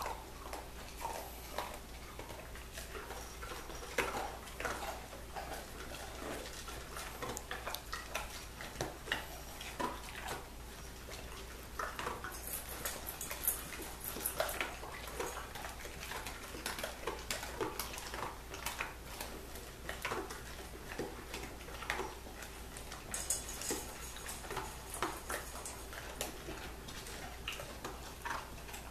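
A Cockapoo eating dry kibble from a stainless steel bowl: irregular crunching and small clinks of kibble against the metal bowl.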